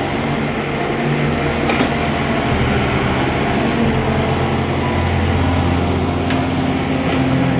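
Excavator running steadily, a low engine-like drone whose pitch shifts a little partway through, with a couple of faint clicks.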